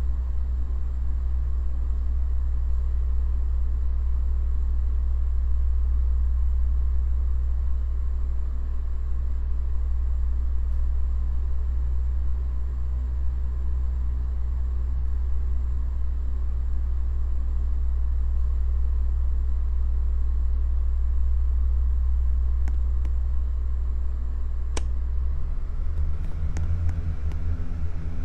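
Solaster Acapulco wall fan running with a steady low hum. Near the end, a couple of clicks are followed by the hum shifting higher.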